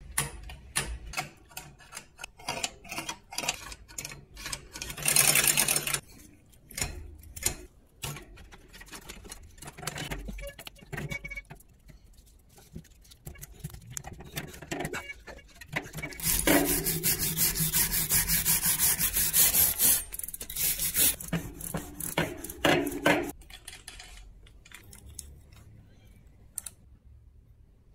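A rusty bicycle chain being scrubbed by hand with a cloth: scraping and rubbing strokes along the chain, with rapid clicking and rattling of the links. Past the middle comes a loud, steady hiss lasting a few seconds, followed by more rubbing strokes that die away near the end.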